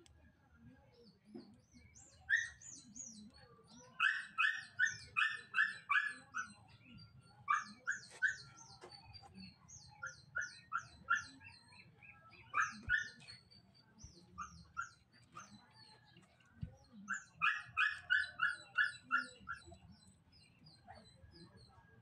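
A dog barking in runs of quick, high yaps, several in a row at about three a second, starting a couple of seconds in and recurring throughout.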